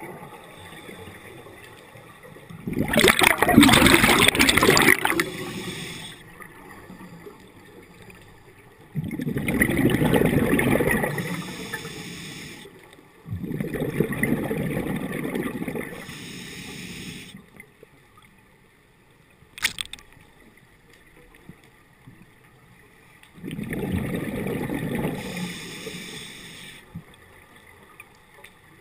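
A scuba diver's exhaled breath bubbling out of the regulator underwater, in four gurgling bursts of about three seconds each with quieter pauses between. There is a single sharp click partway through.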